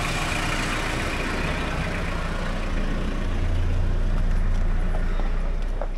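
A truck engine idling with a steady low hum. It grows louder for a couple of seconds in the middle, then eases off near the end.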